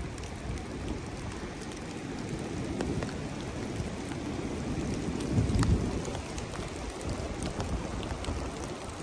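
Gusting wind in bare trees, with a low wind rumble on the microphone that swells to its loudest about five and a half seconds in. Scattered drips and taps of water falling from the branches sound through it.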